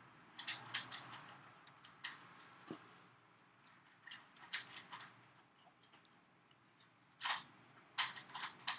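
Scattered small clicks and taps from handling the tiny parts of a rebuilt Protank atomizer head and a plastic dropper bottle of e-liquid while the chimney is being fitted, the loudest clicks a little after seven seconds in.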